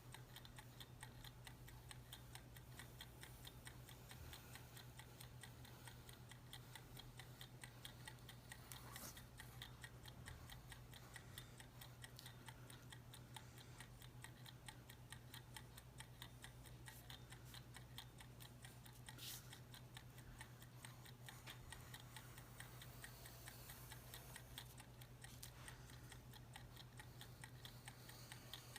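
Mechanical countdown timer ticking steadily and faintly, running down the ten minutes set for the challenge.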